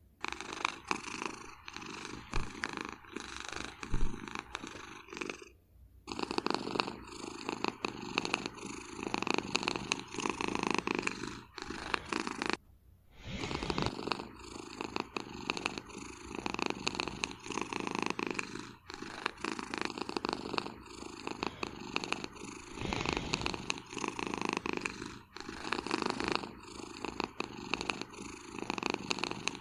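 Domestic cat snoring in its sleep, a rasping sound repeating rhythmically. It breaks off briefly twice.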